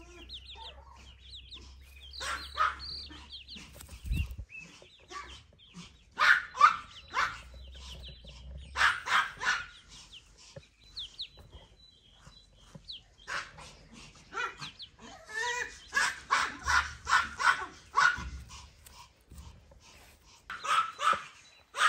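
Baby chicks peeping in short, high, falling cheeps, between repeated loud bursts of rapid, sharp yapping calls from another animal.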